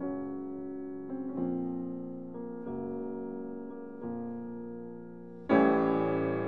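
Background piano music: gentle sustained chords that change every second or so, each fading after it is struck, with a louder, brighter chord about five and a half seconds in.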